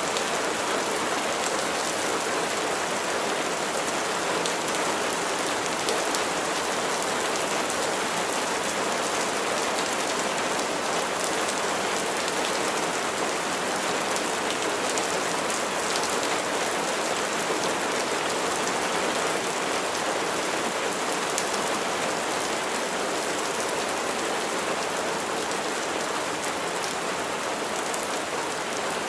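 Steady rain falling, a dense even patter of raindrops hitting a surface.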